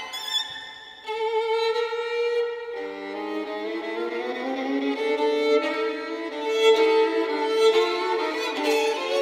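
Solo violin playing a long held note with vibrato about a second in, over sustained chords from a string orchestra that enter lower down about three seconds in.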